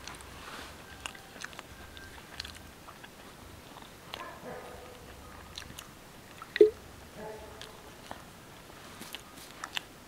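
People eating roti with paneer curry close to the microphone: chewing and biting with scattered small clicks of hands and dishes, and one sharp, much louder click about six and a half seconds in.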